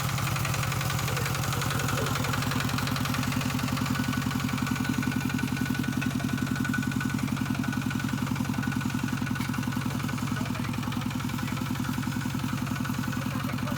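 Engine of farm machinery working in a muddy field, running steadily with a fast, even chugging.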